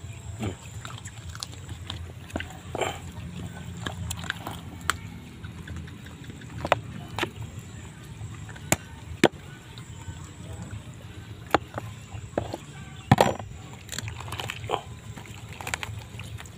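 Wet squelching of raw chicken entrails being handled and cut with a knife in a plastic basin, with a scatter of sharp taps and clicks, the loudest about 13 seconds in.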